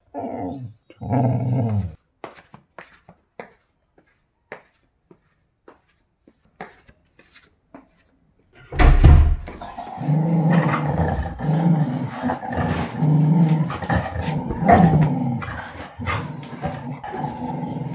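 English springer spaniel growling in short pitched bouts: two bouts at the start, then faint rustles and taps, then near-continuous loud growling and grumbling from about halfway through.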